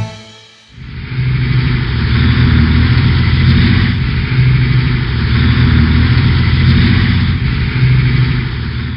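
A motor vehicle's engine running steadily. It comes in about a second in, holds at a constant pitch and level, and stops at the end.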